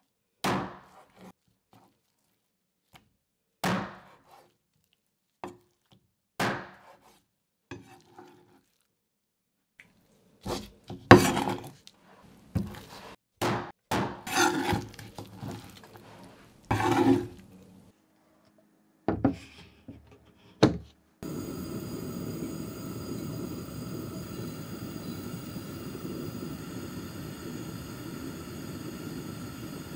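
A knife chopping through bone-in chicken pieces and striking a wooden cutting board, in irregular single knocks and short clusters. About two-thirds of the way in, this gives way to a steady hiss of sugar heating in a clay pot on a gas stove, on its way to a dark amber caramel.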